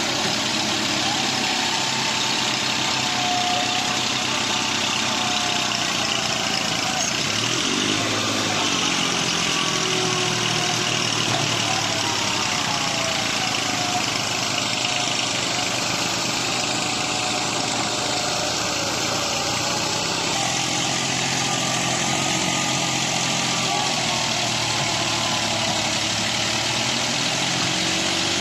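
Heavy diesel machinery engine running steadily, with its pitch drifting slightly up and down.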